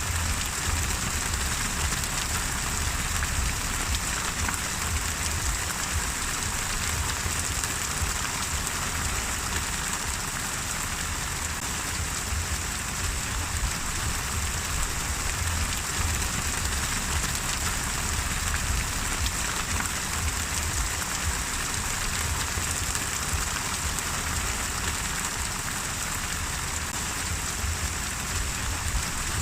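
Steady rain falling and pattering on a surface, an even hiss with many small drop ticks and a low rumble underneath.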